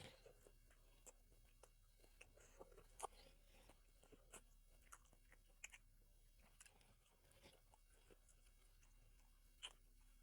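Faint close-up chewing of food, with scattered small wet clicks and crunches from the mouth; one sharper click about three seconds in and another near the end.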